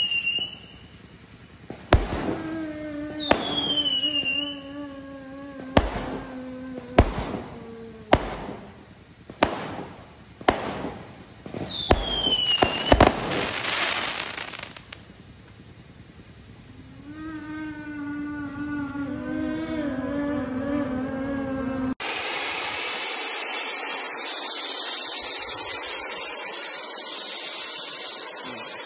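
Fireworks going off in sharp bangs about once a second, some with short falling whistles. About two-thirds of the way through this gives way to the steady hiss of a 30-second fountain firework spraying sparks.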